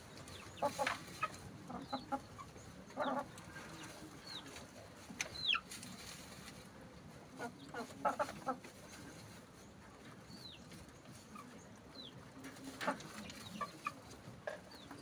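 Chickens clucking in short bursts, a few seconds apart, with thin high chirps that drop in pitch scattered among them.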